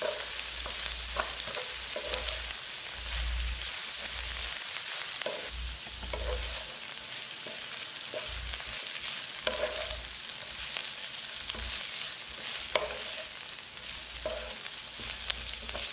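Sliced onions, curry leaves and coriander leaves sizzling steadily in hot oil in a nonstick pan, with a wooden spatula scraping and tossing them in repeated strokes.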